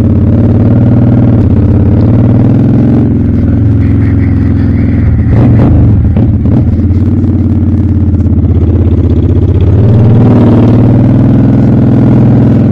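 Honda Shadow VLX 600 V-twin motorcycle engine running at low road speed, its note dropping and then picking up again, with a rough patch of knocking noise about halfway through.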